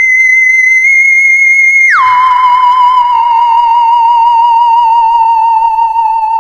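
A comedic whistle-like sound effect: one high pure tone held for about two seconds, then a sudden drop to a lower, slightly wavering tone that slowly sags.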